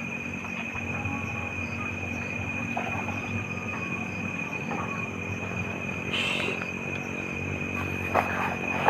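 Night insects keeping up one steady high trill over a continuous rushing sound like running water. A brief hiss comes about six seconds in, and a few soft clicks near the end.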